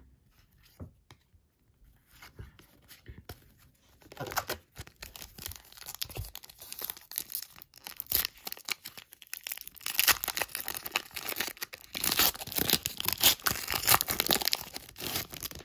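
A football trading card pack's wrapper being torn open and crinkled by hand: a few light handling clicks, then dense crackling from about four seconds in, loudest near the end.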